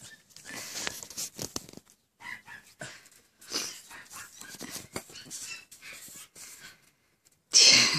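A large dog sniffing and panting at miniature pinscher puppies, with short breathy puffs and soft scuffles. A sudden loud burst near the end.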